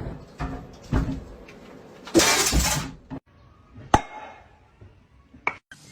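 A loud crash about two seconds in, lasting about half a second, with a breaking, shattering sound. It comes among a few short knocks before it and two sharp clicks later.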